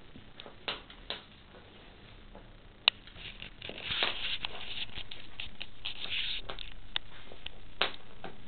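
Bullmastiff puppies' paws and claws pattering and scrabbling on a hard floor: irregular light clicks and scuffles, with one sharp click about three seconds in and busier scrabbling from about four seconds on.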